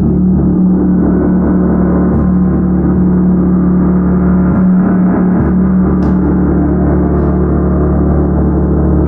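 Tam-tam gong played continuously: a loud, steady, dense wash of many overlapping tones, strongest in the low range, with a few faint light taps.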